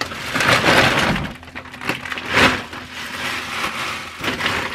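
Rummaging through stored belongings: plastic bags and packaging rustling and things knocking and clattering, with one sharp knock about two and a half seconds in.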